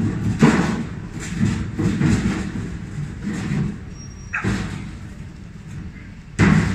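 Steel sliding door of a grill's charcoal storage box being pushed along its track, rumbling and scraping metal on metal in several strokes, with a louder bang near the end.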